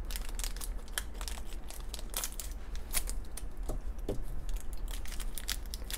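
A small shiny plastic blind-bag wrapper crinkling and crackling as fingers handle it and work it open, with a few sharper crackles along the way.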